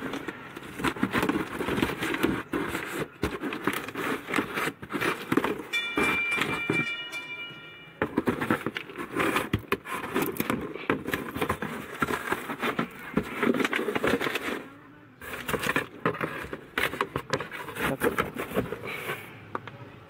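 Cardboard shipping box being unsealed by hand: packing tape peeled and torn off, with irregular crackling, scraping and clicks as the cardboard flaps are handled. A brief high tone sounds about six seconds in.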